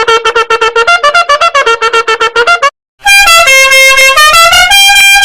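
Meme sound effects: a buzzy tune chopped into rapid pulses, about nine a second, stepping between a few notes; then, after a brief gap about three seconds in, a horn-like tune of held notes that change pitch.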